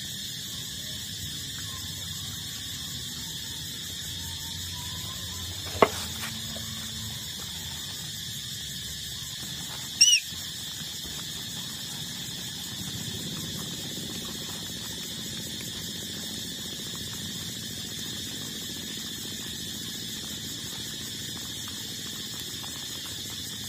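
A puppy gives one short, high squeak about ten seconds in, after a sharp click about six seconds in. A steady high-pitched drone runs underneath throughout.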